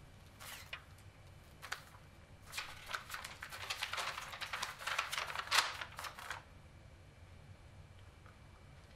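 A folded sheet of paper being opened out by hand: a few short rustles, then a run of crisp crinkling and crackling that stops about six and a half seconds in.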